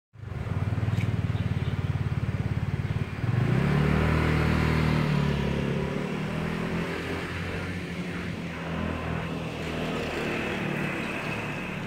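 Street traffic: a motor vehicle engine runs close by, revs up about three seconds in and fades away, leaving steady traffic noise.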